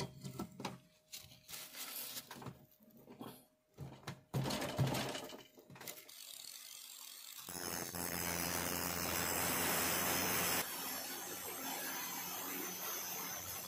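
Irregular hammer taps on the metal pins of a putty knife's wooden handle held in a bench vise. About six seconds in, an angle grinder starts up, and from about seven and a half seconds it runs steadily, grinding into the metal at the handle.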